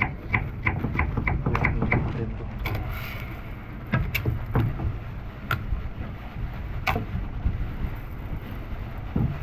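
Knife cutting onion on a wooden chopping board, about three cuts a second for the first two seconds, then a few scattered knocks, over a steady low rumble.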